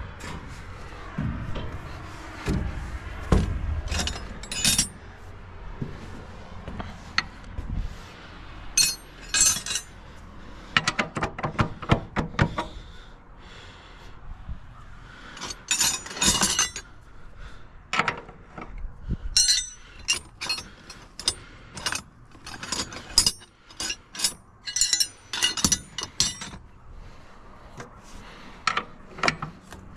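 A steel wrench and metal parts clinking and tapping irregularly, many sharp metallic clicks, with a few dull thuds of steps on a steel ladder and deck in the first few seconds.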